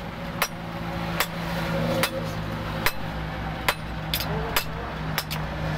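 Hand hammer striking a hot axe head of leaf-spring steel on a steel block anvil: about nine sharp strikes, roughly one a second and quicker toward the end. A steady low drone runs underneath.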